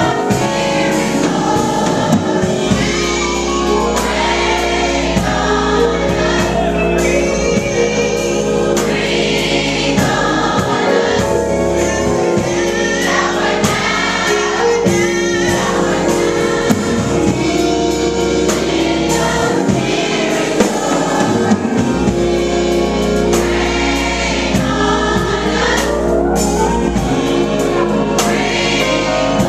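Youth choir of mixed voices singing gospel music with instrumental accompaniment, over a bass line whose low notes change every few seconds.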